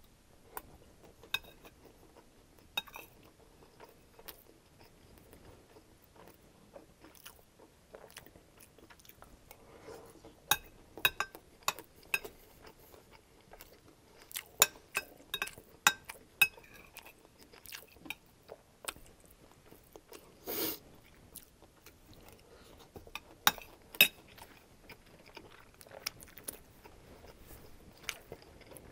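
Close-miked chewing and crunching of crispy chicken fried rice, with irregular sharp crunches and clicks, now and then a metal spoon scraping in a glass bowl.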